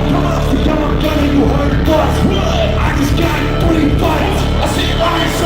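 Loud live concert music with heavy, steady bass and vocals over it, amplified through a venue PA.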